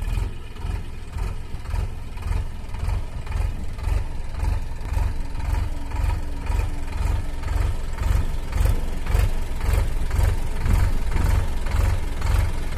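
Solis Yanmar 5015 tractor's three-cylinder diesel engine running with an even low beat, growing louder about two-thirds of the way through as the tractor comes down the dirt slope toward the listener.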